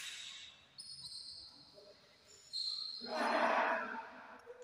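Badminton doubles rally on an indoor court: a sharp hit at the start, then high squeaks of shoes on the court floor, and a louder second-long rush of noise about three seconds in.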